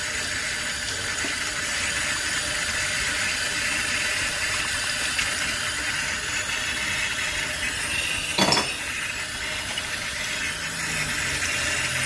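Kitchen faucet running steadily into a stainless steel sink as a nitro RC engine's exhaust pipe is rinsed out under the stream. There is one short clink a little past two-thirds of the way through.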